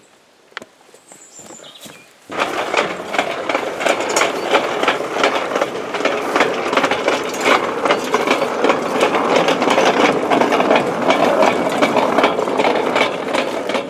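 Home-made narrow-gauge railway wagon carrying a loaded wheelbarrow, rolling along its track. Its wheels rattle and clatter over the rails, starting suddenly about two seconds in.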